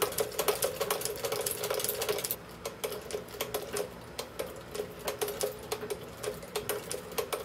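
1908 Singer 29-4 leather-patcher sewing machine stitching through leather strips and plastic mesh: a quick run of mechanical clicks from the needle and feed, slowing and getting quieter about two and a half seconds in.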